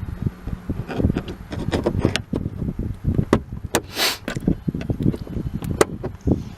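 Flat-blade screwdriver and plastic trim tool working at plastic push-pin clips in a car's trunk trim panel: a string of irregular clicks, taps and knocks, with a brief scrape about four seconds in.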